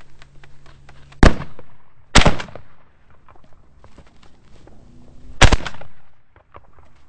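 Shotgun fired three times: one shot about a second in, a second shot about a second later, and a third about three seconds after that, each a sharp report with a short echo.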